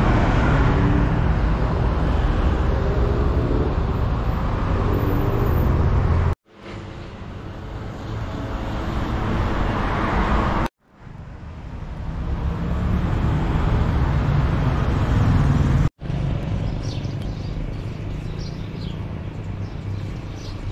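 Road traffic: vehicle engines running and passing, heard in four short clips that each cut off suddenly. The second and third clips grow steadily louder.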